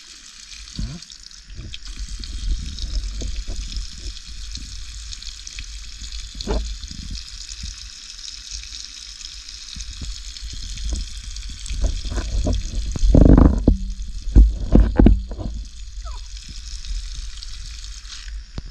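A stream of water pouring from a pipe and splashing onto a heap of freshly caught tilapia as they are rinsed, with a steady hiss throughout. Louder knocks and bumps from the fish being handled come about two-thirds of the way through.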